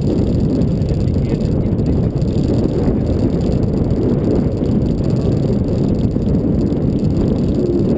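Fishing boat under way: a steady, dense low rumble of motor and wind.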